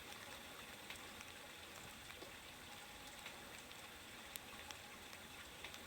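Near silence: faint, even background hiss with a few scattered soft ticks.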